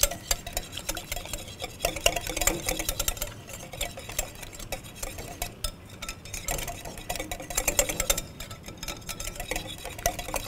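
Wire whisk beating a mayonnaise dressing in a glass bowl: rapid, uneven clicking of the wires against the bowl.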